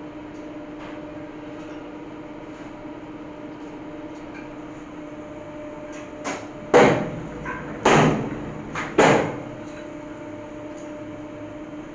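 Steady machine hum from a running industrial press. Between about six and nine seconds in come five knocks, three of them loud with a short ring, as the steel platen and sheet guides are handled.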